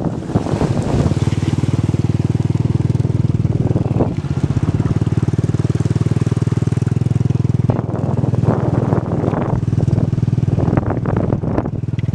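Engine of an open vehicle heard from aboard, running steadily at an even speed along a dirt road; the steady note breaks up and becomes uneven about eight seconds in.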